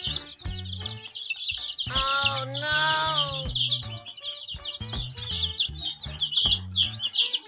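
A flock of baby chicks peeping constantly in rapid, overlapping high chirps, over background music with a low, steady bass line and a rising-and-falling melody partway through.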